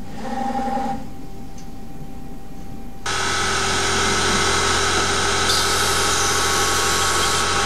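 Small CNC lathe: a quieter machine hum at first, then about three seconds in the spindle is running at speed, a steady whine with several held tones. From about five and a half seconds a twist drill cutting into a Delrin part adds a higher hiss.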